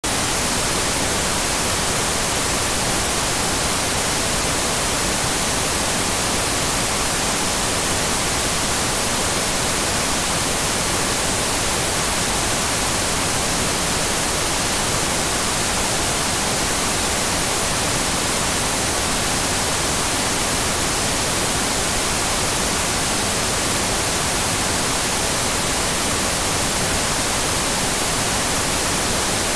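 Television static: a steady, even hiss of noise with no breaks or changes.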